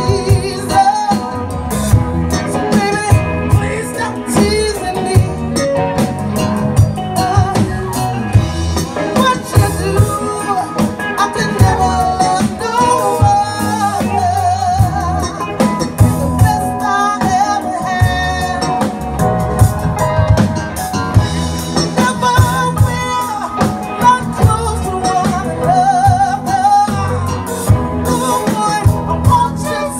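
Live band music: a singer's wavering voice over a drum kit and electric guitar, with a steady beat throughout.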